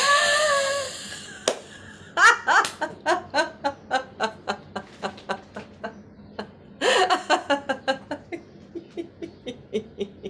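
A woman's snore laughter: the end of a snoring in-breath, then a long run of rhythmic forced laughter, about three or four pulses a second, growing fainter. About seven seconds in, a second snoring in-breath starts another run of laughter.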